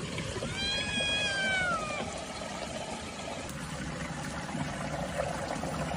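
A domestic cat meows once, a long meow of about a second and a half that rises and then falls in pitch, over the steady trickle of a small stream.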